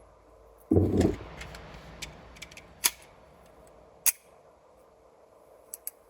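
A dull, heavy thump about a second in, then a handful of sharp, separate clicks spread over the next few seconds.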